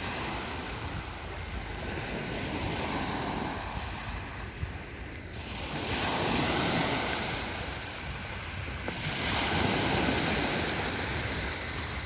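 Small waves breaking and washing up on a sand-and-pebble shore. The surf swells and fades about three times.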